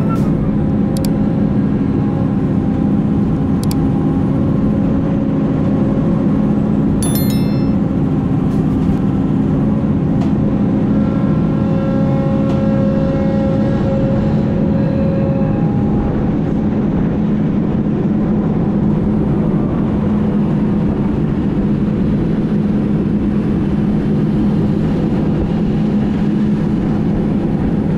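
A heavy construction machine's diesel engine running steadily: a loud, even drone. Higher whining tones come and go about halfway through, and a brief cluster of clicks sounds about a quarter of the way in.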